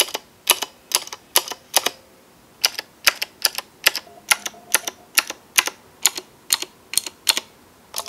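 Repeated presses of the long stabilized keys (backspace, enter, shift) on an iKBC CD87 mechanical keyboard with Cherry MX Blue switches. Each press and release is heard as a sharp clack, about two to three a second, with a short break about two seconds in.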